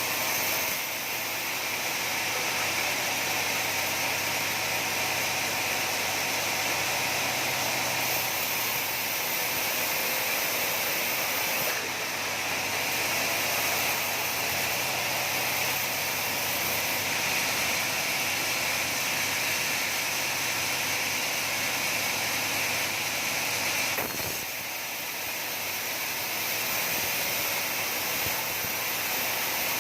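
Sawmill saw running steadily with a loud, even noise, dipping briefly twice.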